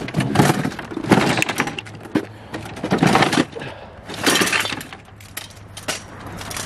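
Junk being dug out and shifted in a trash pile: a run of clattering knocks and cracks, with several longer crunching bursts.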